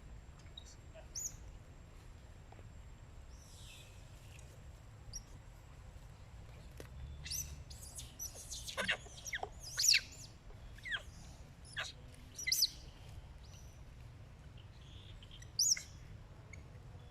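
A young monkey's high-pitched, bird-like squeaks: short, falling chirps, a few scattered early on and near the end and a quick run of them through the middle.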